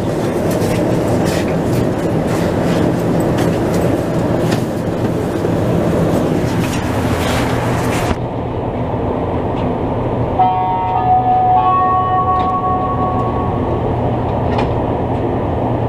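Montreal Metro MR-73 rubber-tyred train running into a station with steady rolling noise and clatter. Then, with the train stopped and the doors open, the door-closing chime sounds as a few rising tones, and the sliding doors shut with a knock.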